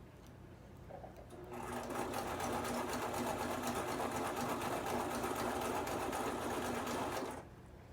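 Brother home sewing machine running at a steady speed, stitching hair tracks onto a wig cap. It starts about a second and a half in, runs evenly for about six seconds, then stops abruptly.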